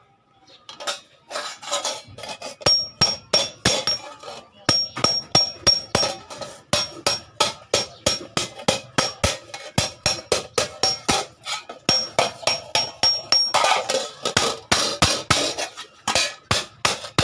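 Hand hammer striking iron on an anvil in a steady run of blows, about three or four a second, many leaving a short high ring.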